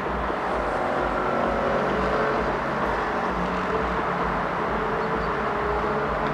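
Steady engine noise with a few faint whining tones that drift slightly in pitch.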